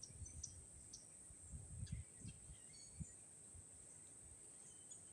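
Near silence: faint outdoor background with a steady high insect-like drone, a few faint bird chirps, and some soft low rumbles in the first two seconds.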